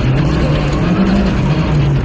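Rally car engine under hard load on a stage, its revs climbing and dropping several times in quick succession as it shifts gears.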